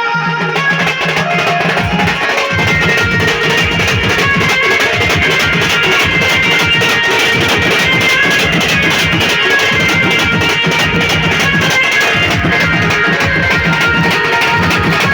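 Odia melody band playing an instrumental passage: a plucked-string, guitar-like lead line over fast, steady drumming.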